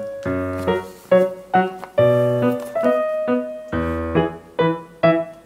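Background keyboard music: a piano-like melody of separate struck notes that each die away, over low bass notes.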